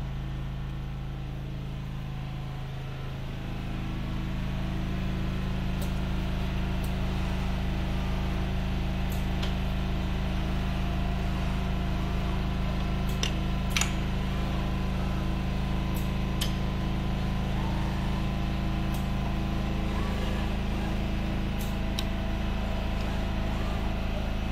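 Mitsubishi RV-2AJ robot arm and its Festo assembly station running a program: a steady mechanical hum that grows louder about three seconds in, with faint whirs rising and falling and sharp clicks every few seconds as the arm moves and handles parts.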